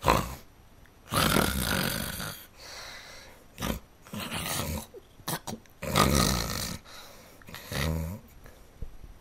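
A person's voice making loud growling, snoring-like animal noises in about five breathy bursts, with a few short clicks in between; the last burst is lower and more pitched. It is a mock wake-up call aimed at someone asleep.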